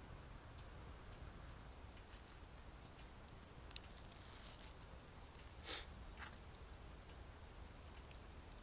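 Near silence: a faint background with scattered light ticks and one brief, louder noise a little past halfway.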